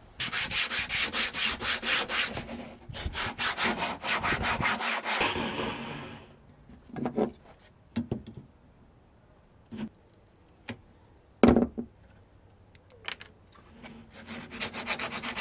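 Hand-sanding a polyurethane side skirt extension: quick back-and-forth strokes, about five a second, in two runs over the first five seconds. A few scattered knocks and taps follow, and the strokes start again near the end.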